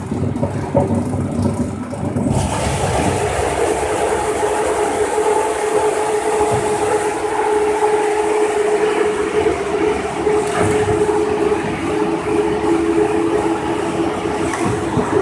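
4 ft core veneer peeling lathe running with a low rumble. About two seconds in, a loud steady rushing noise starts as it peels the log core into a continuous veneer sheet, over a steady electric-motor hum.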